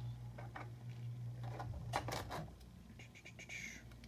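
Small plastic parts being handled and fitted together: a few light clicks and knocks of hard plastic on plastic, with a brief scrape a little after three seconds in.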